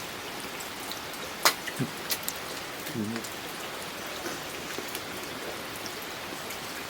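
Steady rain falling, with single drops tapping sharply on nearby surfaces; the loudest tap comes about a second and a half in.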